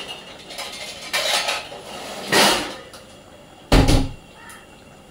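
Cooking pots and utensils being handled: a clatter about a second in, a louder one around two and a half seconds, and a sharp knock with a heavy thump near four seconds.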